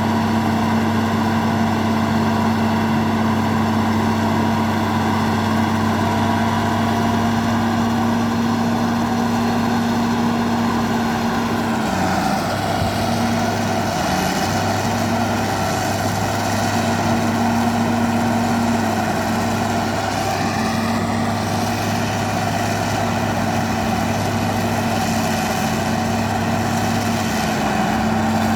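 Bulldozer diesel engine running steadily with a low hum. Its pitch drops and wavers from about twelve seconds in, then settles back near the end.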